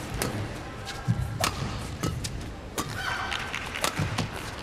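Badminton rally: rackets striking a shuttlecock back and forth, a string of sharp hits roughly once a second, with a brief shoe squeak on the court floor about three seconds in.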